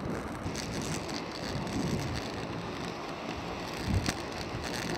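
Steady rolling and wind noise on the microphone during a steep downhill ride, with a single thump about four seconds in.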